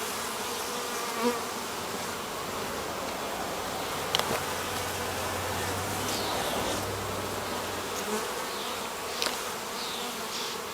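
Honey bees buzzing steadily around an opened hive as its frames are lifted out, with a few faint clicks.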